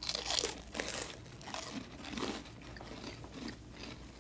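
People chewing and crunching caviar on buttered bread: a run of short crunching and mouth noises, busiest in the first second and fainter after.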